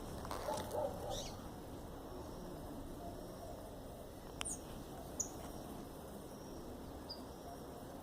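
Garden ambience with a few short, high bird chirps, most of them in the first second or so, and a sharp click about halfway through.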